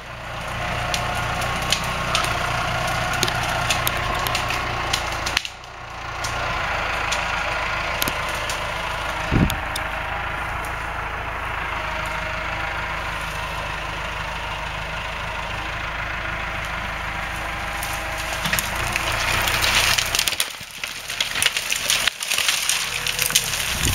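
A tractor engine runs steadily, with scattered snaps and cracks of wood. About four seconds before the end the engine sound drops away, leaving crackling and rustling of dry brush.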